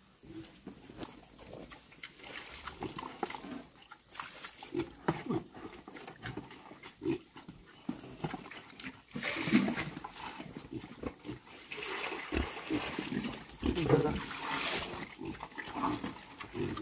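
Pigs grunting in short, irregular calls, with louder, noisier stretches about nine seconds in and again from about twelve to fifteen seconds.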